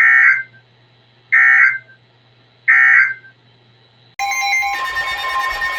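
Three short digital data bursts of the Emergency Alert System's end-of-message code from a NOAA Weather Radio, evenly spaced about a second and a half apart, marking the end of a severe thunderstorm warning. About four seconds in, a louder, steady alarm-like electronic tone sound starts and carries on.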